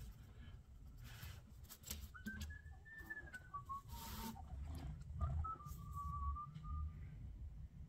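A person whistling a slow tune, starting about two seconds in: one pure note that rises, falls and is held. Faint scratching and tapping of a brush on paper goes on underneath.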